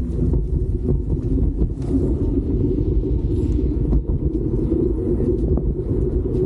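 Steady low rumble of wind buffeting the microphone on a moving bicycle, with a few faint clicks.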